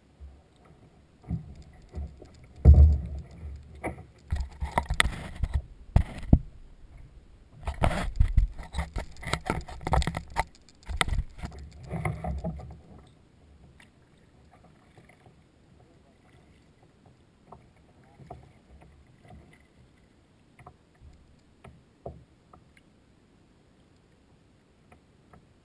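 Kayak paddling heard from the boat: irregular paddle splashes and knocks against the plastic hull, loud for the first dozen seconds with one heavy thump about three seconds in, then only a few faint clicks.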